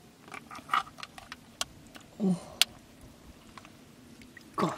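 Small splashes of hands working in shallow stream water, with scattered clicks of freshwater clam shells knocking on rock as they are picked up and set down. One sharp click comes about two and a half seconds in.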